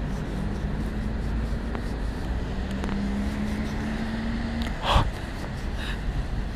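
Steady rumble of street traffic with a faint, slightly rising engine hum from a passing vehicle, and a short knock about five seconds in, likely from handling the camera.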